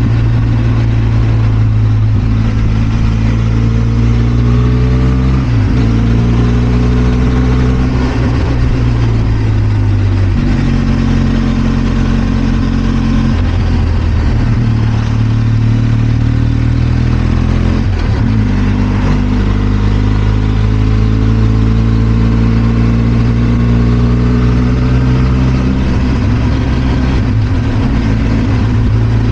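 Benelli TRK 502 X motorcycle's parallel-twin engine running under way. Its note slowly rises and falls, with a few abrupt steps in pitch along the way.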